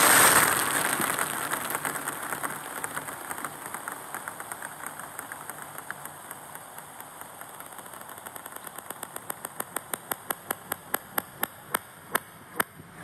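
Hundreds of table tennis balls pouring onto a table tennis table: a dense clatter of bounces that slowly fades and thins out into separate bounces of single balls, a few of them sharp and loud near the end.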